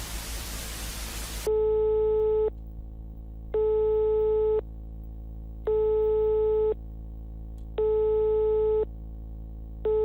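Static hiss that cuts off about a second and a half in, then a telephone line tone: a steady beep about a second long repeating every two seconds, four times, with a fifth cut short as the call connects.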